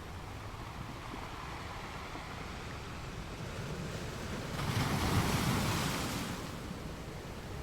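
Sea waves on a beach: a steady wash of surf, with one wave breaking louder about four and a half seconds in, its hiss swelling and fading over about two seconds.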